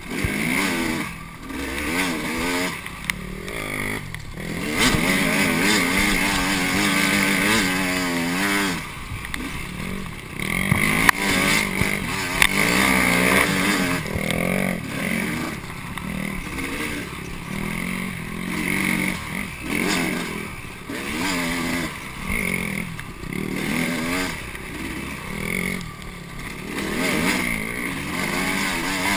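KTM 300 EXC two-stroke dirt bike engine revving up and down over and over as the throttle is opened and closed.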